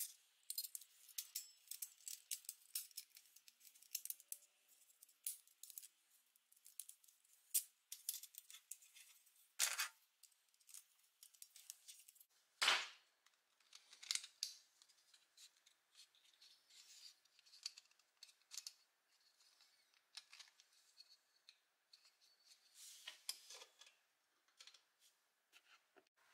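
Small steel parts of a toy's pump mechanism clicking and clinking as they are fitted together by hand: a coil spring and rod worked into a stamped metal housing. A sharper click comes about ten seconds in, and a louder snap comes about three seconds after that.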